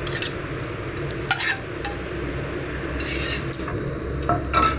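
Steel spoon scraping and clinking against a steel pan and a glass bowl as soaked boondi is spooned into yogurt, in a run of short clinks and scrapes, the loudest clink near the end.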